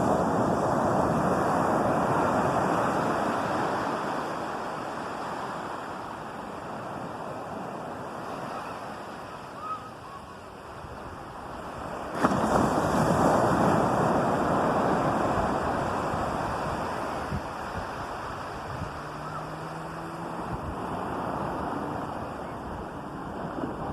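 Ocean waves breaking on a beach: the surf washes in loudly, fades over several seconds, and a second wave crashes about twelve seconds in and washes out the same way.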